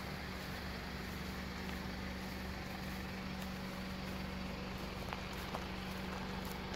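Honda CR-V's 2.0-litre petrol four-cylinder idling with a steady low hum. A few faint crunches of gravel underfoot come about five seconds in.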